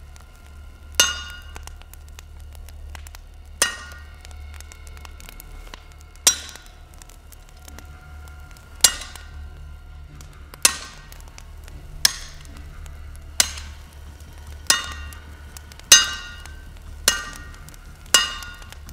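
Hammer striking metal on an anvil: about eleven ringing blows, spaced a couple of seconds apart at first and coming faster toward the end. A low steady hum runs underneath.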